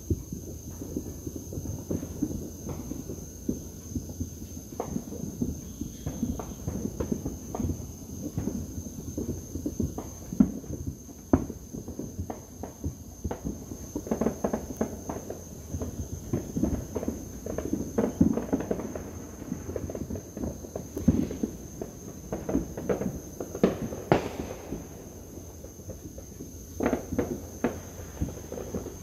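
Fireworks and firecrackers popping and banging irregularly and almost without pause, a few bangs louder than the rest.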